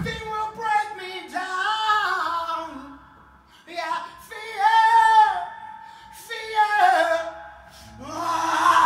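Unaccompanied singing: several long, high sung phrases that bend and slide in pitch, with a short sharp hit right at the start.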